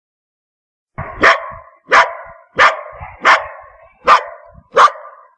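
A dog barking: about six sharp barks in a steady rhythm, roughly two-thirds of a second apart, starting about a second in after silence.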